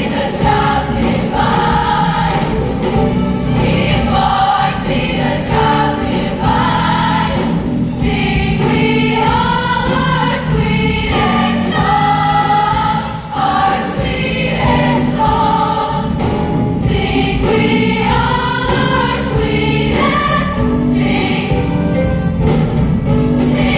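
Choir singing a Christmas piece with instrumental accompaniment, sustained sung lines over a continuous low instrumental bed.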